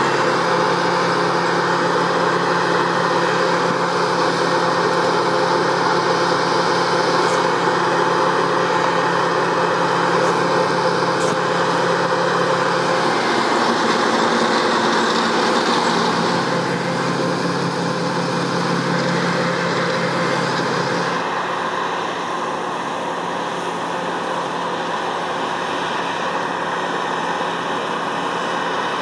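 Massey Ferguson 7360 PL Beta Paralevel combine harvester running steadily while cutting and threshing grain: a continuous engine drone under the noise of the header and threshing gear. The pitch and tone shift abruptly a few times.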